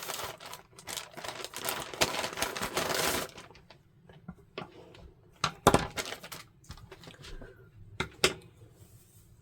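Plastic packaging crinkling and rustling for about three seconds as items are handled, then a few scattered clicks and knocks, the loudest about halfway through.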